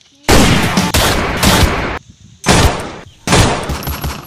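Gunfire sound effects: about five loud bursts of rapid shots in quick succession, each cutting in suddenly and fading over about half a second.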